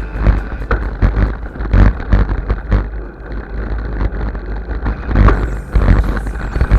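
Wind buffeting a bike-mounted or helmet camera's microphone during a mountain-bike ride, an uneven low rumble, with frequent rattles and knocks from the bike over rough ground.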